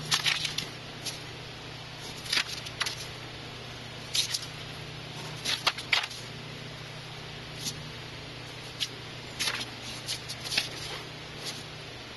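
Paper sheets rustling and a plastic protractor being slid, set down and tapped on a worksheet, with irregular short scrapes and clicks every second or so. A steady low hum runs underneath.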